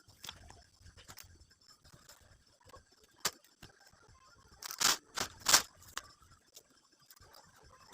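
Gift packaging being handled and unwrapped: small clicks and rustles, a sharp click about three seconds in, and two louder short rustles, like plastic wrap being pulled or torn, about five seconds in.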